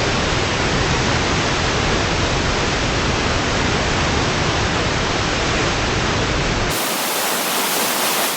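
Water rushing through a dam spillway: a steady, loud roar of falling water with a deep rumble underneath. Nearly seven seconds in, the deep rumble drops away abruptly and what is left is a thinner, hissier rush.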